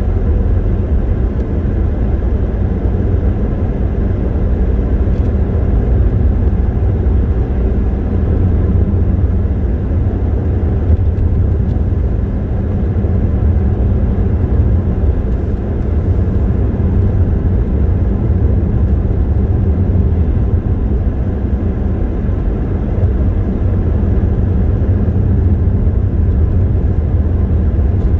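Car driving along a road: a steady low rumble of engine and tyres on the road surface, even in level throughout.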